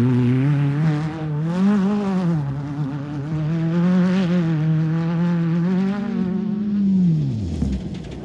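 Off-road race vehicle's engine running hard, its pitch rising and falling with the throttle. Near the end the pitch falls steeply as it passes and fades.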